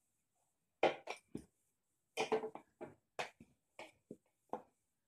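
Rolling pin working missi roti dough on a plastic chopping board: a string of short, irregular knocks and rubs as the pin is pushed back and forth.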